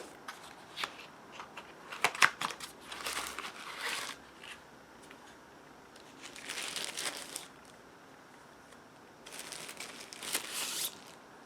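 Unboxing: a box opened and plastic or paper packaging crinkling and tearing in several bursts, with a few small knocks and clicks near the start.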